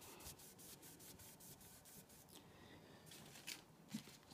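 Faint rubbing of 800-grit wet/dry sandpaper worked back and forth over the aluminum body of a model train passenger car, wet-sanding out scratches. Quick strokes at about five a second, softer about halfway through, with a couple of slightly firmer strokes near the end.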